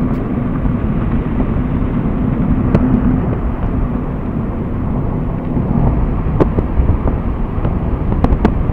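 Steady road and wind noise of a car driving along, heard from inside the car, with a few light knocks near the end.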